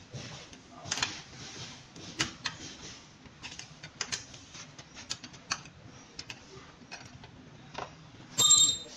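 A string of separate sharp clicks and light taps, like hands working on bike parts, then a short, loud electronic beep near the end.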